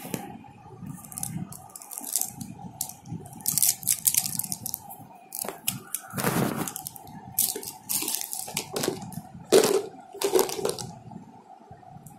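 Hands handling plastic stationery, gel pens and a plastic tub, making irregular rustles, clicks and crinkles, the loudest about halfway and two-thirds of the way through, over a faint steady hum.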